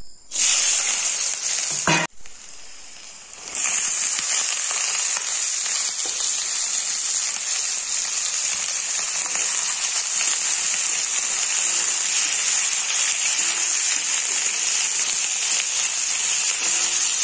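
Onions and green chillies dropped into hot oil in a wok, sizzling loudly. The sizzle drops briefly about two seconds in, then goes on steadily as the pig ear pieces fry.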